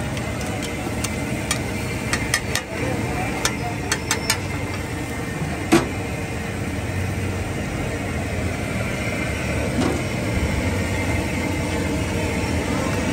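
Scattered sharp clinks of metal cooking utensils, a quick run of them in the first four seconds and the loudest a little before six seconds, over steady traffic noise from the street.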